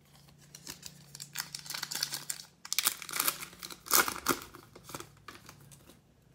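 Foil wrapper of a 2020 Panini Mosaic football card pack being torn open and crinkled by hand. The rustling comes in irregular bursts, with the loudest rip about four seconds in.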